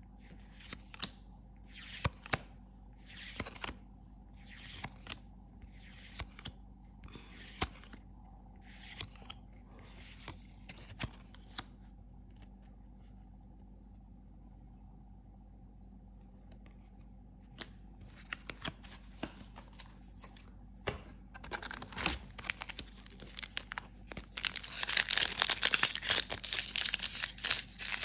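Trading cards slid off a small stack one by one, a soft swish about once a second. After a pause and a few light clicks, a foil booster pack crinkles and tears loudly as it is ripped open near the end.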